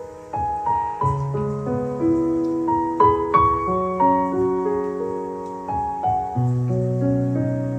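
Solo piano background music: single notes struck one after another and left to ring over lower held chords.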